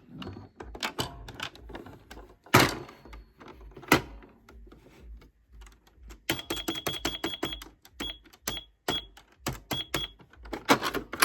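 Toy cash register being handled and its plastic keys pressed: a string of clicks and a couple of louder knocks, then from about six seconds in a quick run of short, high beeps of one pitch, one for each keypress, followed by a few single beeps.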